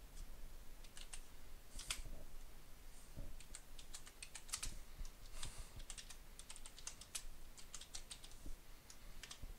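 Typing on a computer keyboard: irregular key clicks, a few at first, then quicker runs of keystrokes from about four seconds in.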